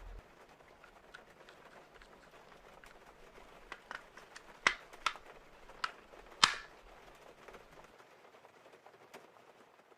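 Airsoft shots: about half a dozen sharp, irregularly spaced cracks bunched in the middle, the loudest two near the halfway point, over faint rustling.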